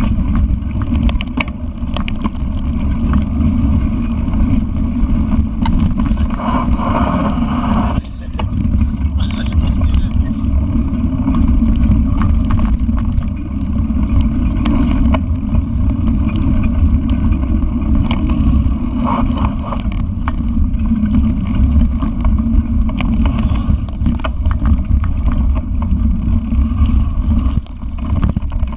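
Steady, loud rumble of a mountain bike rolling over a rough dirt trail, with wind on the microphone and frequent knocks and rattles from bumps.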